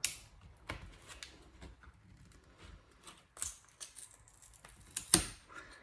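Scattered sharp clicks and small scraping and rustling noises of a pry tool and parts as a glued-in MacBook Air speaker is prised out of the case. The loudest click comes about five seconds in.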